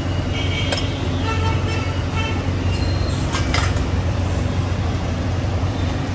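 Steady low rumble of background noise, with a few sharp clinks of stainless steel ladle and plates, one about a second in and a couple more around three and a half seconds in.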